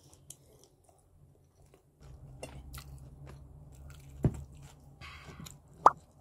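A young child biting and chewing a soft bread bun with her mouth full, in faint, wet, scattered mouth sounds. A low hum comes in about two seconds in, with a sharp tap about four seconds in and a brief sharp sound near the end.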